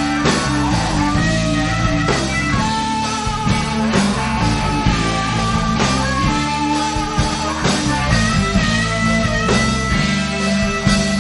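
Background rock music with guitar.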